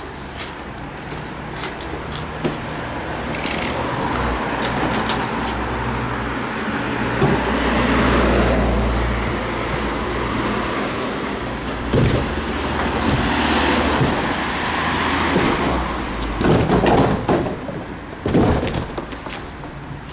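A motor vehicle engine runs with street traffic noise around it, swelling about eight seconds in. Several sharp knocks and thuds come in the second half.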